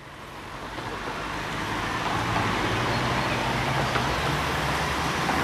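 Outdoor background noise like distant road traffic, fading in over the first two seconds and then holding steady, with a low hum underneath.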